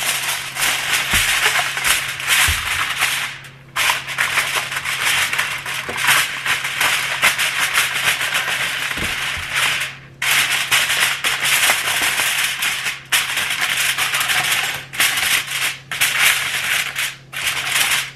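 Aluminum foil being crinkled and crimped by hand over a baking sheet: a dense, loud crackling that breaks off briefly several times.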